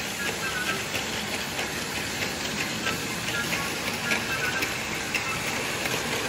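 Battery-powered Tomy Plarail Percy toy train running on plastic track: a steady motor-and-gear whirr with frequent small clicks.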